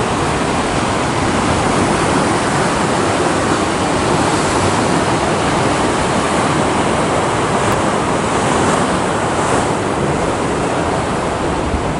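Heavy surf breaking and churning against rocky volcanic cliffs: a loud, steady rush of white water with no pauses between waves.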